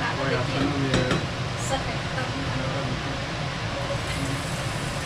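A person's voice briefly in the first second over a steady low background rumble, with a few light clicks about a second in.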